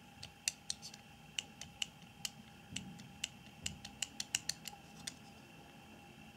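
Steel jaws of a JTC 3473 vernier caliper clicking as the sliding jaw is rocked back and forth, about twenty light irregular clicks that stop about five seconds in: the clicking is the play (looseness) in the slider.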